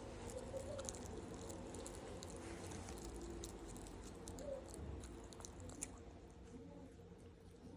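A pet chewing a treat: faint, irregular clicks of biting and chewing over a low background hum.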